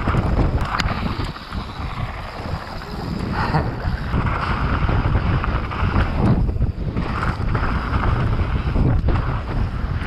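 Mountain bike descending a bike-park trail at speed: wind buffeting the camera's microphone over the irregular rattle and rumble of tyres and frame on the dirt.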